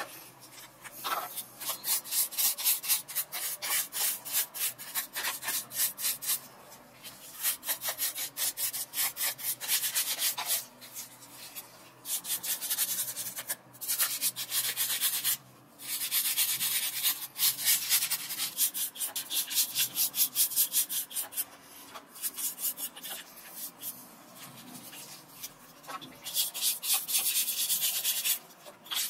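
A toothbrush scrubbing rusty camera parts in foamy cleaning solution: fast back-and-forth bristle scratching in runs, broken by several short pauses.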